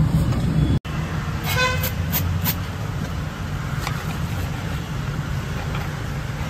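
Busy street background with a steady low traffic rumble; a short vehicle horn toot about a second and a half in, followed by a few sharp clicks. The sound cuts out for an instant just before the horn.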